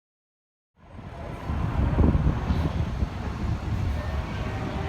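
Ferrari racing car engine, heard as a low rumble that starts about a second in after silence, builds for a second, then runs steady.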